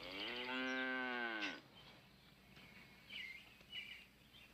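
A cow mooing once, a long call of about a second and a half that drops in pitch as it ends, with birds chirping faintly afterwards.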